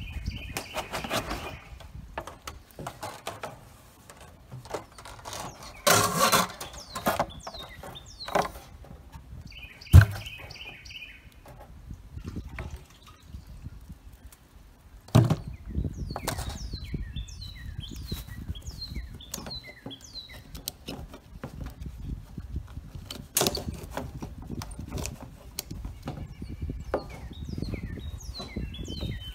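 Knocks, clicks and clatter of a plastic water barrel, its lid and hose fittings being handled, with two short hissing bursts like water spurting from the fitting. Birds chirp in short falling notes through the second half.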